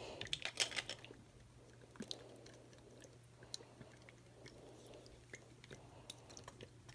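Faint squelching and small clicks of thick purple slime being squeezed out of a plastic squeeze bottle and sliding out in a long rope, over a faint steady low hum.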